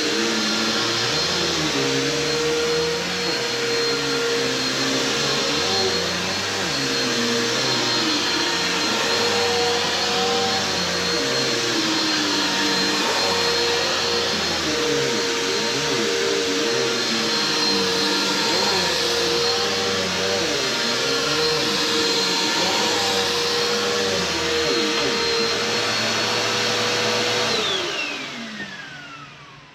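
Bissell PowerForce bagged upright vacuum cleaner running with a steady motor whine. It is switched off near the end, and the whine falls in pitch as the motor spins down.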